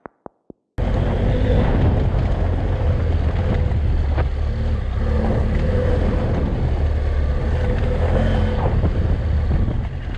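BMW F800GS adventure motorcycle's parallel-twin engine running steadily as the bike rides along a dirt road. The sound cuts in abruptly just under a second in, after a few faint fading clicks.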